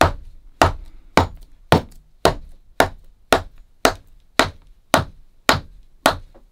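Cobbler's hammer striking a glued leather rand on the heel of a shoe on its last, a steady run of about twelve blows, just under two a second, punching the rand down so the glue bonds.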